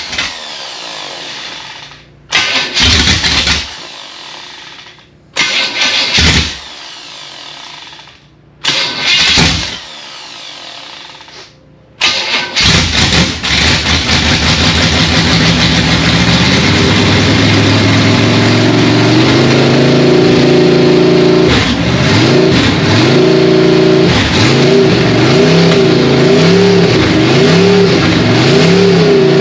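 Chevrolet 350 small-block V8 with open exhaust and no mufflers firing in short bursts that die out several times, then catching about twelve seconds in and running on, its pitch rising as it revs up and then swinging up and down as the throttle is blipped near the end. It is the engine's first run after being freed from seizure, and the owner thinks it is getting a little extra fuel.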